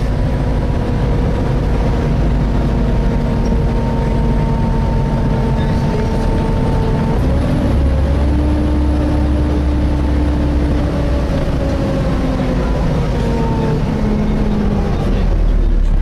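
Volvo B7TL double-decker bus running on the move, heard from inside the saloon: a heavy engine rumble with the cooling fan's steady whine (the 'hoover' noise). The whining tones hold steady, then shift and slide in pitch about halfway through as the bus changes speed.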